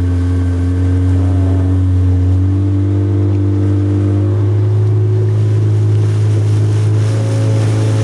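Outboard motor of a small open boat running at cruising speed: a steady, loud drone whose note rises slightly a couple of seconds in.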